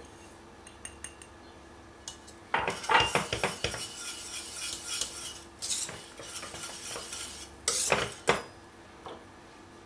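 Wire whisk stirring desiccated coconut into thick semolina pudding in a stainless steel pot, its wires clicking and scraping against the pot in uneven clusters of strokes. The strokes begin about two and a half seconds in and end near the finish.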